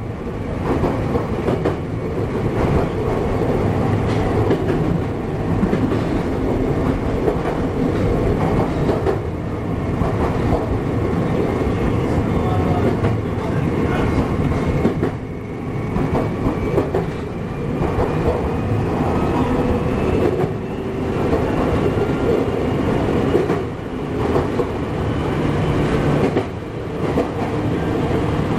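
Chichibu Railway 7500 series electric train running, heard from just behind the driver's cab: a steady rumble of wheels on rail with repeated rail-joint clicks, and a faint whine slowly rising in pitch through the middle.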